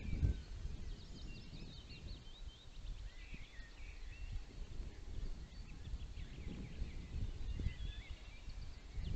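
Small songbirds chirping and singing faintly, in short scattered notes throughout, over a low rumble of wind on the nest camera's microphone that is strongest at the very start.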